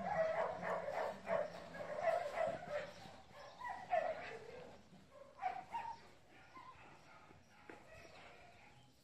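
A dog yipping and whining in short repeated calls that fade out after about six seconds.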